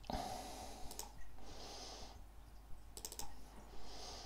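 Faint clicks of a computer mouse, a single click about a second in and a quick run of clicks about three seconds in.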